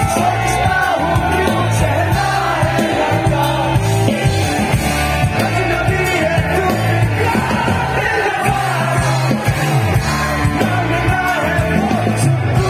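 Rock band playing live on stage: a lead vocal sung over acoustic and electric guitars, bass guitar and drums, with a steady bass line.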